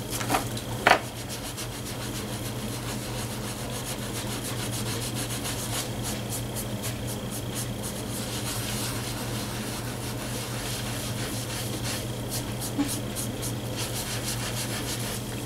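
A damp sponge rubbing back and forth over a paper image transfer on a coaster: soft, rhythmic scrubbing as the wet paper backing rubs away. Two short knocks come in the first second, over a steady low hum.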